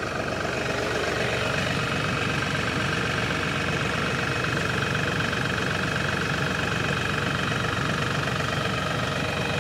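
LS MT342 compact tractor's diesel engine idling steadily, a little louder after about a second. It has just been started after a hydraulic fluid and filter change, to push the new fluid through the system and warm the oil.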